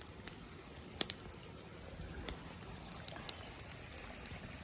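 Wood fire burning with a low hiss and scattered sharp crackles and pops, the loudest about a second in and several more two to four seconds in.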